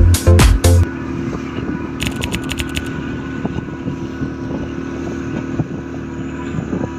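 Loud dance music with heavy bass cuts off about a second in, leaving a speedboat's engine running steadily under way, with wind and water rushing past. A short run of sharp clicks comes about two seconds in.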